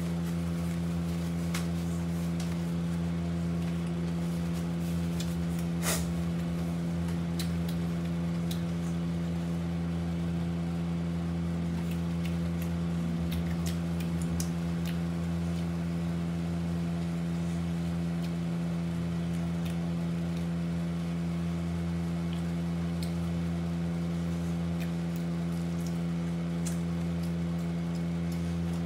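A steady machine hum with one strong low pitch and its overtones, like a room appliance or fan motor, with faint scattered clicks and taps from eating out of plastic containers with a plastic spoon; one sharper click about six seconds in.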